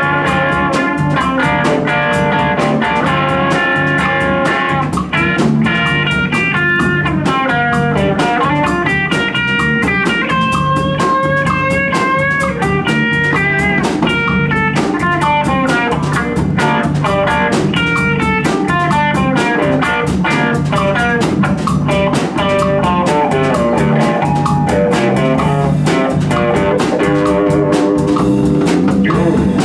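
Electric guitar solo on a hollow-body electric guitar, a running line of single notes with some bent notes, over a drum kit and bass, played live by a small band.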